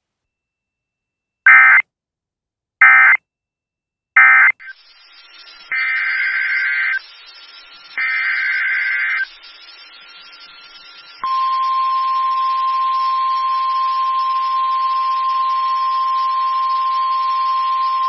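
Emergency Alert System tones. First come three short bursts of warbling SAME digital data, then faint radio static and two longer data bursts. About eleven seconds in, the steady single-pitch 1050 Hz NOAA Weather Radio warning alarm tone begins and holds.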